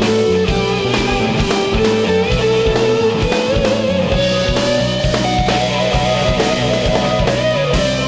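Rock instrumental: an electric guitar lead holds long notes that climb in pitch, over a steady drum beat and bass.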